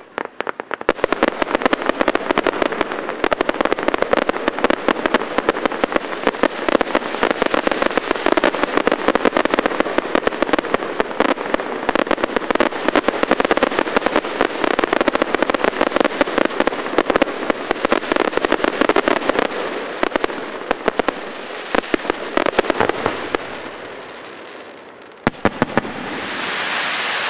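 Fireworks display: a long, dense run of rapid crackling and popping from bursting shells that thins out near the end, followed by a few separate sharp bangs and a rushing noise that swells.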